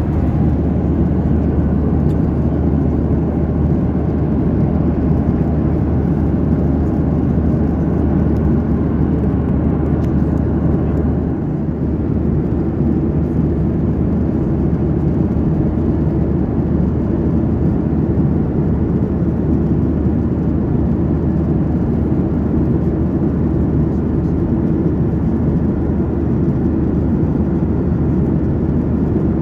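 Steady cabin noise inside a Boeing 737-900ER at cruise: the deep drone of its turbofan engines mixed with rushing airflow. A low hum in it eases slightly about eleven seconds in.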